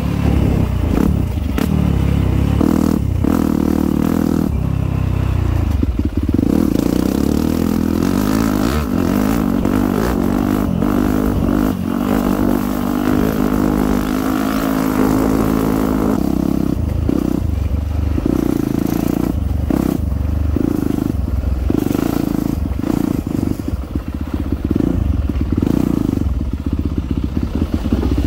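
Dirt bike engine running as the bike is ridden, its pitch rising and falling with the throttle: a long steady climb in pitch around the middle, then shorter surges and drops near the end.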